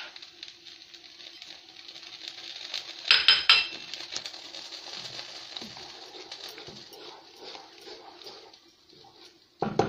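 Wooden spatula stirring minced meat and tomato in a metal pot over a steady sizzle, with a quick run of sharp knocks against the pot about three seconds in and another knock near the end.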